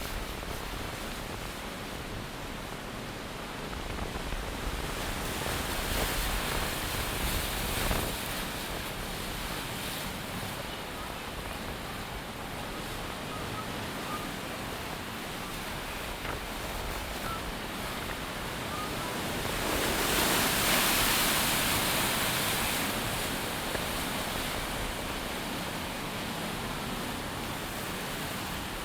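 Atlantic surf breaking below the pier under a strong storm wind, with the wind gusting across the microphone; the rush swells louder twice, briefly about a fifth of the way in and for a few seconds about two-thirds through.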